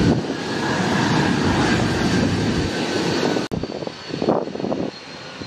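F-35B Lightning II's F135 turbofan jet engine running on the runway: a steady jet roar with a high whine, cut off suddenly about three and a half seconds in and replaced by quieter jet noise with a higher whine.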